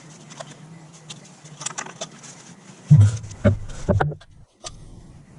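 Light metallic clicking and rattling of tools and parts being handled during clutch work, with a few heavy knocks about three to four seconds in, then a brief dropout.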